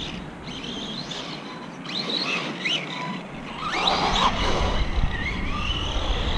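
Brushless electric motor of an Arrma Typhon 3S RC buggy whining as it is driven, the pitch rising and falling with each burst of throttle, with a longer rising whine in the second half as it accelerates.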